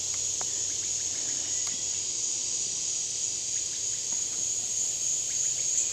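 Steady insect chorus: a constant high-pitched shrill drone with no breaks, with a few faint ticks.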